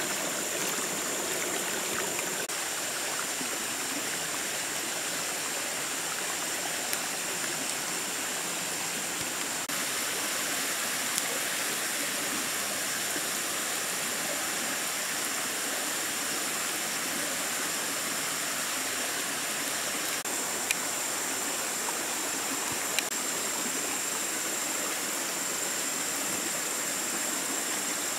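Small forest stream flowing steadily over rocks, with a thin, steady high-pitched whine above it and a few faint clicks.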